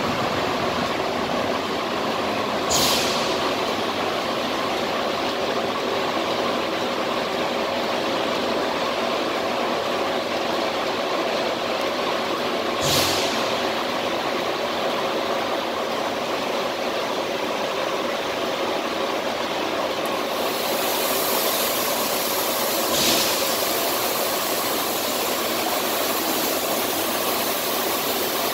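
Steady industrial hum and hiss of a FICEP automatic I-beam cutting machine, with three short bursts of hiss about ten seconds apart. About twenty seconds in, a sharper high hiss joins as the cutting torch starts burning through the steel beam.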